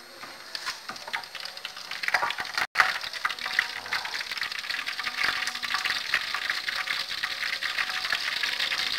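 Corn fritters frying in hot oil in a wok: a steady sizzle with dense crackling. It grows louder from about two seconds in, with a brief break a little under three seconds in.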